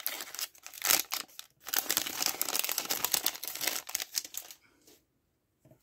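A plastic cellophane wrapper on a trading-card pack crinkling and crackling as it is torn open and pulled off the cards. It stops about four and a half seconds in.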